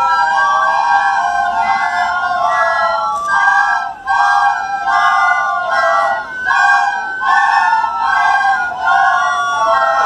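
A class of children playing a simple melody together on plastic soprano recorders, a string of short separate notes about two a second.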